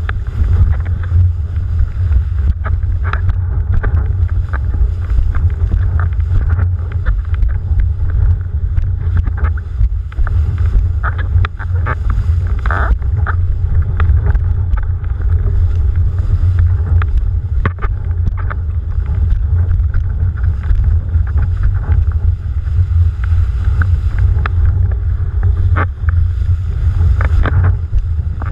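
Windsurf board planing over chop, heard through a boom-mounted camera: wind buffets the microphone in a steady low rumble, with rushing water and spray and frequent small slaps and ticks of water against the board and camera.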